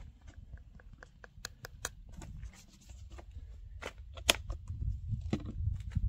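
Footsteps on pavement and close handling of a plastic bottle: scattered clicks and scuffs over a low rumble, growing busier about four seconds in.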